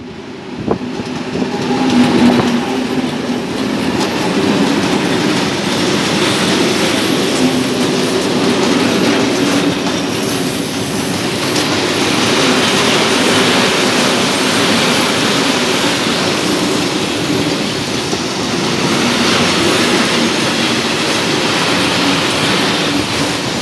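Two Czech 'brejlovec' (class 753) diesel locomotives pass close by with their engines running, loudest about two seconds in. A long train of loaded hopper wagons follows, rumbling and clattering steadily over the rails.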